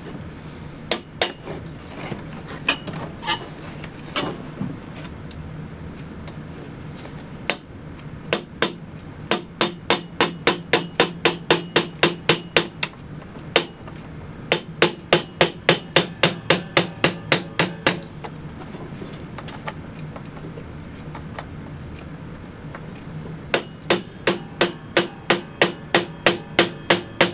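Small hammer tapping nails in quick runs of about three to four strikes a second, in three bursts with a few scattered single taps before them, over a low steady hum. The nails are being driven into new picnic-basket hinges to be peened over on the inside.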